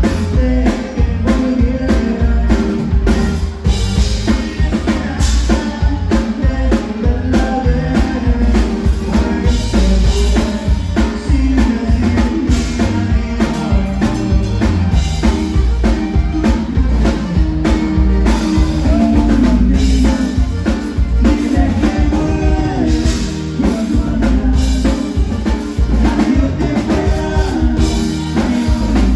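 Live conjunto music: a button accordion leads over a twelve-string bajo sexto, electric bass and a drum kit keeping a steady dance beat, with a man singing.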